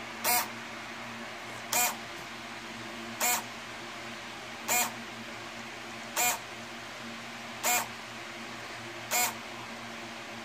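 Model P-38 landing-gear control unit giving a short squeaky chirp about every second and a half, seven times, over a faint steady hum, as the system waits for its valve to close after the gear extension.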